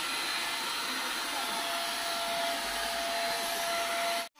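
Handheld electric paint spray gun running steadily while spraying paint: a steady motor whine over rushing air. It cuts off suddenly near the end.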